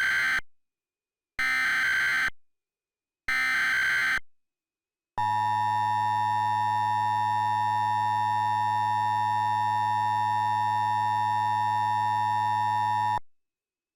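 Emergency Alert System tones: three warbling bursts of SAME header data, about a second each, then the steady two-tone EAS attention signal held for about eight seconds before it cuts off suddenly.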